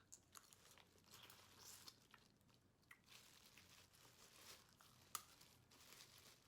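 Faint close-up chewing and mouth sounds of a person eating seafood, with scattered small crackles and one sharper click about five seconds in.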